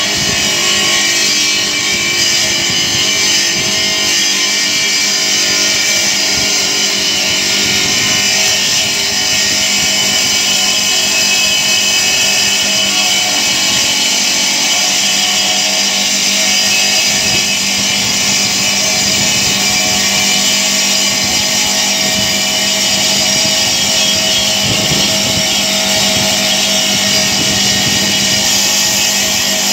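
Rail-mounted marble cutting machine with a diamond circular blade running and cutting through a marble slab: a steady, loud high-pitched motor whine with grinding that holds even throughout.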